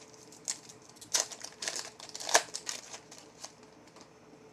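Trading card packs and cards being handled: a string of short crinkling rustles, loudest about two and a half seconds in, dying away near the end.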